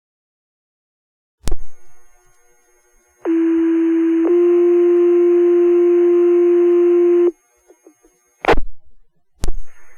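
Fire department radio paging tones: the channel keys up with a click, then a two-tone sequential page sounds, a steady tone for about a second stepping to a slightly higher tone held about three seconds. Sharp radio clicks follow near the end as the transmitter unkeys and keys again.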